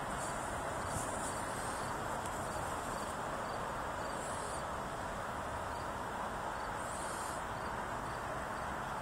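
Insects calling at dusk: a short, high call about every three seconds and a faint, regular chirping about twice a second, over a steady background hum.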